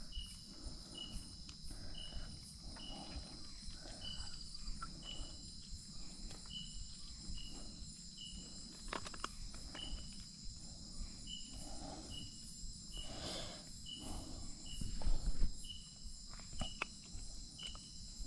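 Night insect chorus of a tropical forest: a steady high-pitched buzz with a short, higher chirp repeating a little more than once a second. A brief low bump comes about fifteen seconds in.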